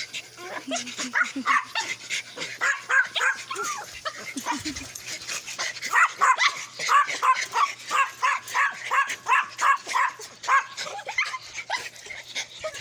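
Dogs whining and yipping, short high cries repeating two or three times a second.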